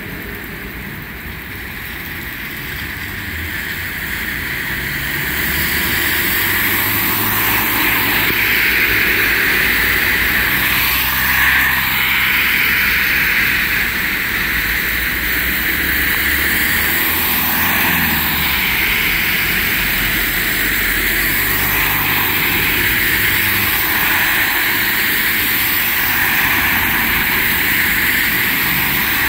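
Street traffic in the rain: a steady noise of tyres on wet road, with vehicles passing by in a few broad swells over a low rumble. The noise builds over the first several seconds, then holds steady.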